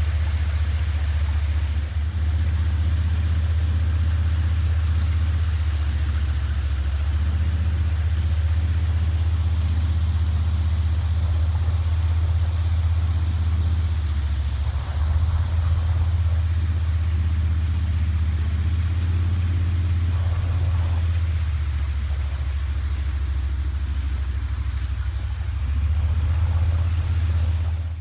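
Small boat's motor running steadily with a low, even drone.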